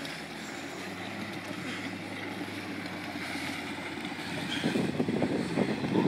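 Yamaha SuperJet stand-up jet ski's two-stroke engine running steadily at low throttle, a low hum, with water churning and splashing around the hull. The churning grows louder about four and a half seconds in.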